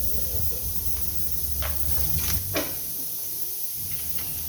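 Three sharp knocks over a low steady hum, typical of parts or tools being handled during engine teardown.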